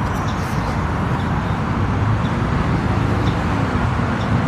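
Steady low rumble of vehicle or road-traffic noise, with a few faint light ticks.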